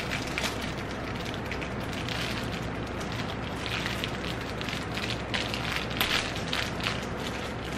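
Clear plastic belt wrapping crinkling and a metal belt buckle clicking as a belt is threaded and fastened: short irregular crackles over a steady low hum.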